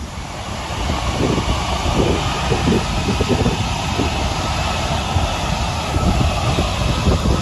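The turbofan engines of a four-engine military jet transport running, a loud, steady jet roar and hiss that builds over about the first second and then holds.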